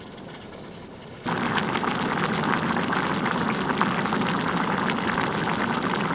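Chicken curry bubbling and sizzling in a pan on a gas stove, with many small pops and crackles. It starts abruptly about a second in.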